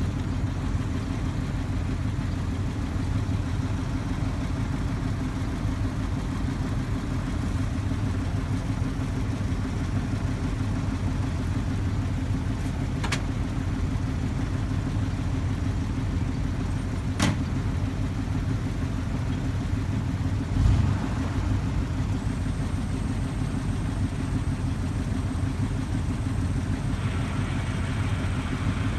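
Heavy truck engine idling steadily. Two sharp clicks come around the middle, and a short dull thump follows a few seconds later.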